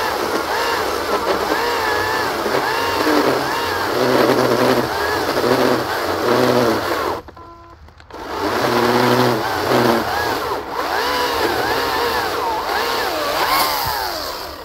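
Greenworks GS181 82-volt cordless electric chainsaw cutting through a large oak log, its motor pitch repeatedly sagging and recovering under load as it struggles a little. The motor stops for about a second roughly seven seconds in, then runs and cuts again.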